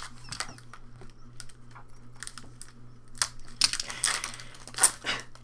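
Pokémon trading cards being handled and flipped through: irregular sharp clicks and short rustles, busier from about three seconds in.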